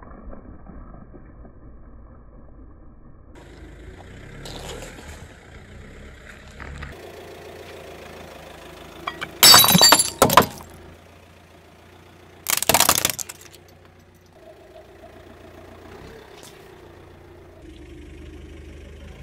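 A glass container shattering and crunching under a slowly rolling car tyre: a loud burst of cracking about nine and a half seconds in, and a second loud crunch about three seconds later, over the car's low engine hum.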